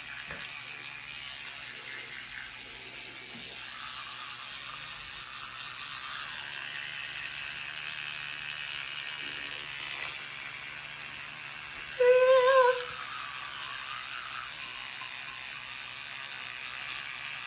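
Electric toothbrush running steadily as it brushes teeth, its buzz mixed with wet, foamy brushing. About twelve seconds in, a short wavering hum cuts in briefly, louder than the brushing.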